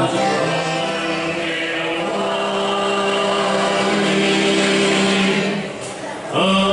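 Live habanera music: several voices singing together in long held notes with the band, dipping about six seconds in, then a new piece starting with a loud held chord.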